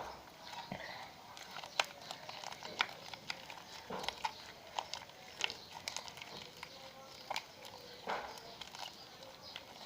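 Homemade glue-and-liquid-detergent slime being kneaded and stretched by hand: irregular sticky squelches and small clicking pops as it is worked to make it less sticky.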